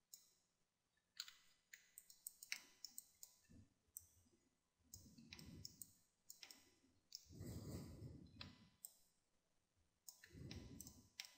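Faint, irregular clicking of a computer mouse and keyboard keys as someone works in 3D modelling software, with a few soft low puffs of noise between the clicks.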